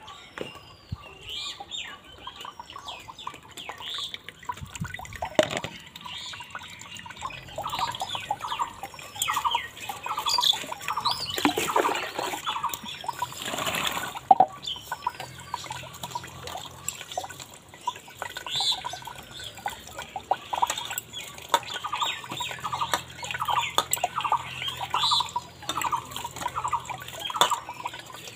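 Rice being washed by hand in a steel bowl: water poured from a tin into the bowl about halfway through, with splashing and swishing of rice and water. Birds chirp with a short repeated call throughout.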